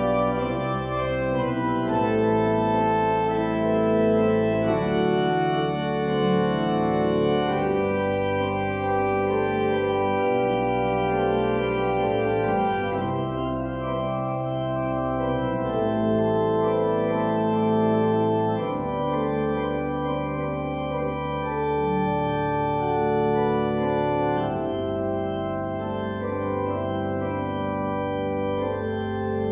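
Organ playing slow sustained chords over held bass notes, the harmony changing every few seconds.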